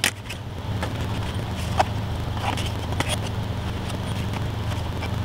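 Air conditioner running with a steady low hum. Over it come scattered light clicks and taps of chipboard pieces and drafting tools being handled on a cutting mat.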